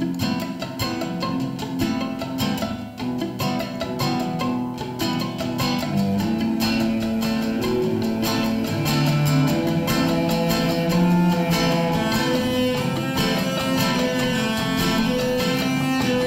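Acoustic band music: picked acoustic guitars with held, bowed cello and violin notes. It grows fuller and louder from about six seconds in.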